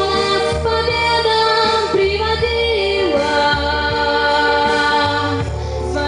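A woman singing a Russian song into a microphone, holding long notes with vibrato, over a recorded instrumental accompaniment with a steady low bass.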